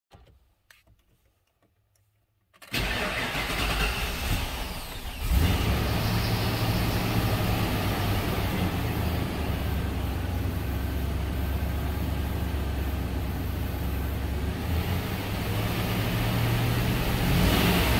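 A 1996 Ford Bronco's 5.8-litre V8 is cranked by its starter motor from about 2.5 s in, catches about five seconds in, and settles into a steady idle with the engine still cold.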